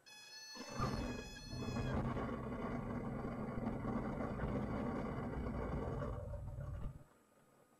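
Diamond single-engine airplane on its landing roll, engine at idle: a brief high squeal of the tyres meeting the runway near the start, then a steady rumble of wheels and airframe rolling on the pavement, which cuts off suddenly about seven seconds in.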